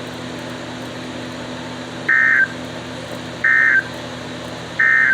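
Emergency Alert System end-of-message signal: three short, identical bursts of warbling digital data tone, evenly spaced about a second and a third apart, marking the end of the tornado warning broadcast. They sound over a steady low background hum.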